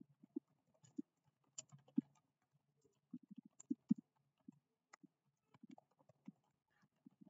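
Faint, irregular clicking and tapping of computer keyboard keys, with a quicker run of keystrokes about three to four seconds in.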